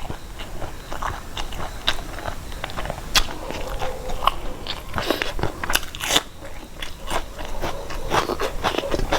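A person eating: chewing and biting food with irregular crunches and clicks, several a second.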